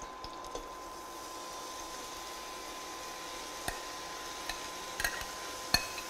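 Steady sizzle from the pot of frying tomato and onion as chopped spinach is tipped in, with a metal spoon clinking against the glass bowl and steel pot four times in the second half.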